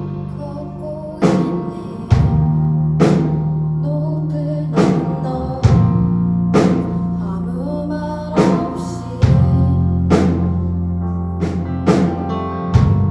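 Band music with a drum kit: drum hits about once a second over held bass notes that change every few seconds.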